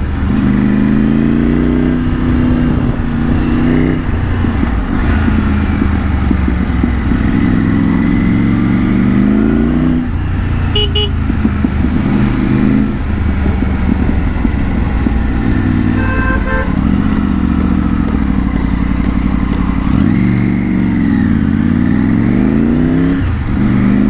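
Triumph Tiger 900's three-cylinder engine through a Scorpion aftermarket exhaust, heard from the rider's seat: the revs climb and fall again and again as the bike accelerates, shifts and rolls off. Near the middle, a vehicle horn beeps briefly.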